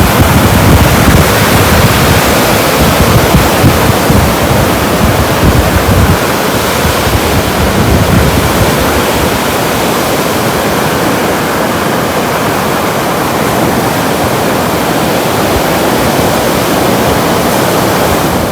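Loud, steady rush of water and wind, with gusty low rumbling in the first few seconds, then cutting off abruptly at the end.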